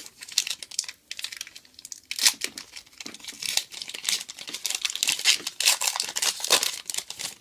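Foil Pokémon XY Evolutions booster pack wrapper crinkling and tearing as it is opened by hand, with a dense run of crackles.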